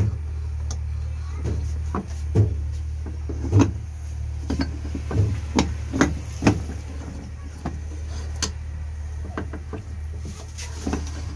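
Short metallic clicks and knocks as a starter motor armature is handled, lifted out of its housing and set back in, over a steady low hum.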